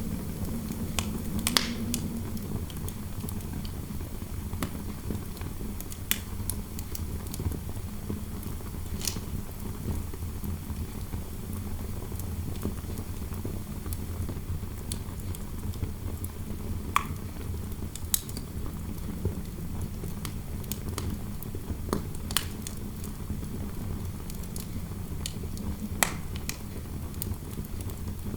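Fireplace fire crackling, with scattered sharp pops every few seconds over a steady low rush of wind noise.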